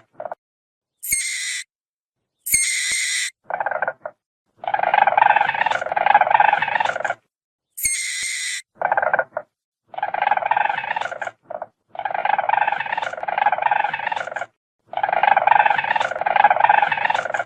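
Weasel calling: short, very high-pitched squeals, three of them in the first half, alternating with repeated bouts of fast chattering trills, each bout two to three seconds long, separated by brief silences.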